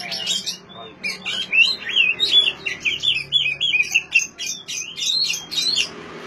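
Oriental magpie-robin (kacer) singing: a fast, unbroken run of short, varied whistles and chattering notes.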